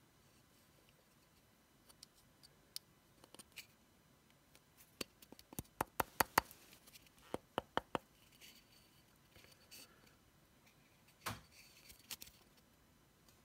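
Small clear plastic screw-cap jars and their white caps being handled: scattered sharp plastic clicks and taps, with a quick run of a dozen or so clicks around the middle and a single louder knock near the end.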